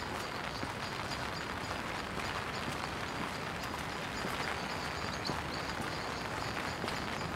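Footsteps on wet paving under a steady hiss of rain, with faint irregular ticks of drops and steps.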